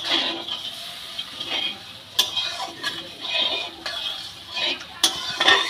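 A metal spatula stirs and scrapes a thin spice gravy around a metal kadai, with sizzling from the pan. Now and then the spatula clinks sharply against the pan, about two seconds in and again near the end. The fried masala paste has just had a little water added.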